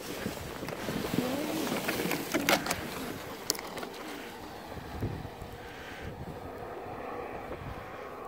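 Wind buffeting the microphone over the scrape of a plastic sled sliding down a snowy slope. About a second in there is a brief wavering voice-like sound, and a few sharp clicks follow between two and four seconds.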